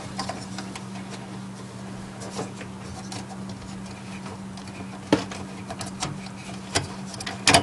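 A few sharp clicks and light handling noise from the Akasa CPU cooler's plastic push-pin fasteners being twisted and pulled up to release the heatsink from the LGA775 board, over a steady low hum.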